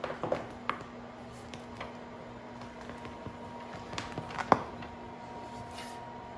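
Quiet room tone with a steady low hum and a few soft clicks or taps, the sharpest about four and a half seconds in.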